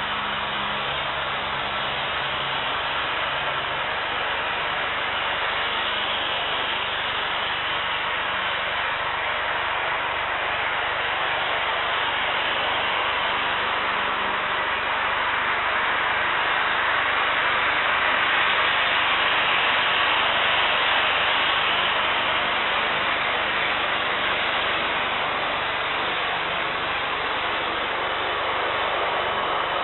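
Steady rushing hiss of airport apron noise, swelling a little about two-thirds of the way through and easing again.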